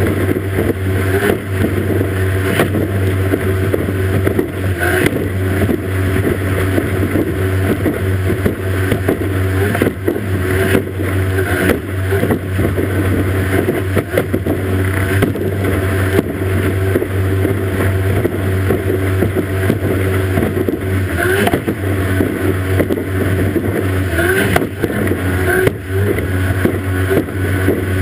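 Outboard engine of a racing powerboat running steadily at full speed, heard from the transom, with rushing spray and wind on the microphone. Irregular thumps come every second or so as the hull slams over the waves.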